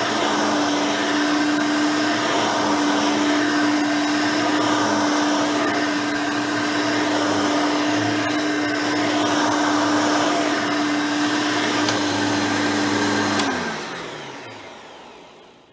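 Hoover Elite 5.0 upright vacuum with its rebuilt original 5-amp motor running steadily with a constant hum. It is switched off with a click near the end, and the motor's pitch falls as it winds down.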